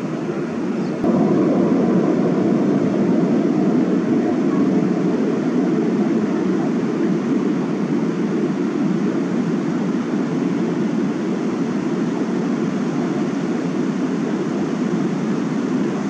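Steady, deep rush of river water pouring over a small weir step as rapids, growing louder about a second in.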